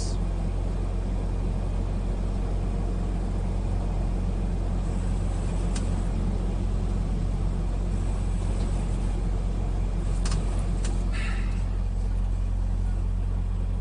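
Steady low drone of a semi-truck's engine and road noise, heard from inside the cab while driving, with two faint clicks about ten seconds in.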